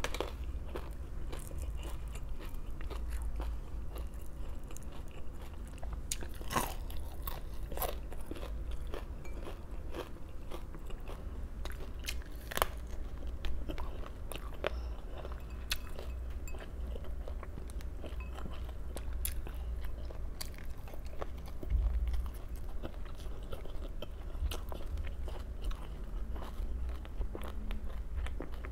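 Close-miked crunching and chewing of crisp raw vegetables: irregular sharp crunches, a few louder bites standing out, over a low steady hum.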